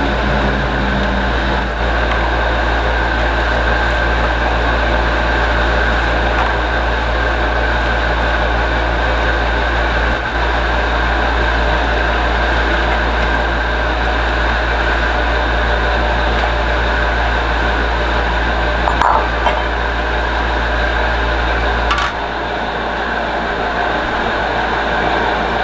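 A machine running steadily: a constant whirring noise with a low, even hum, a little weaker in the bass about 22 seconds in.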